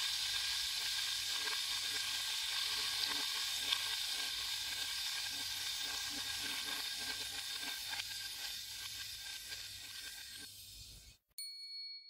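A steady hiss with faint crackle that slowly fades over about eleven seconds and then cuts off, followed by a short faint tone just before the end.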